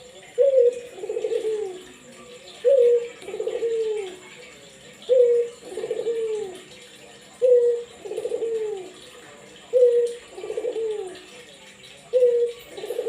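Barbary dove cooing over and over, six two-part coos about every two and a half seconds: a short clear note, then a longer rolling note that drops in pitch.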